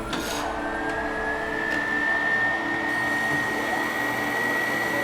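Machine tool's electric motor spinning up: a whine that rises in pitch over the first two seconds and then holds steady, over a constant lower hum.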